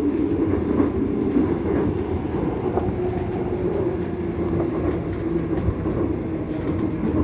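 Seoul Subway Line 2 electric train running at speed, heard from inside the car: a continuous rumble of wheels on rail with a steady hum from the drive.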